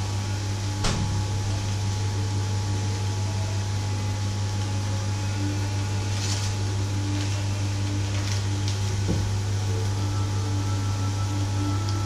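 A steady low machine hum with a soft hiss over it, from a running kitchen appliance or fan. A sharp click comes about a second in, a plastic bag rustles around six seconds in, and there is a light knock near nine seconds.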